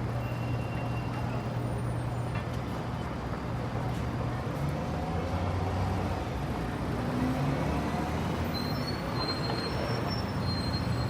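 Motor vehicle engine running steadily with road noise, its low hum shifting slightly in pitch partway through. Faint short high-pitched tones come in near the end.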